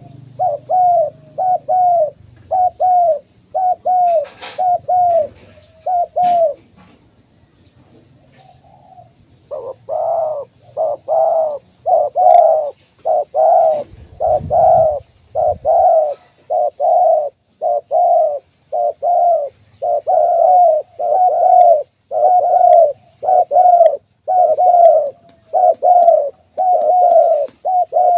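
Spotted dove cooing: loud coo notes repeated about twice a second in a run, then after a pause of about three seconds a long, unbroken series of calls.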